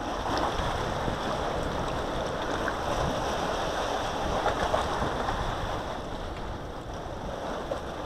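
Steady rushing of wind and water, with wind buffeting the microphone.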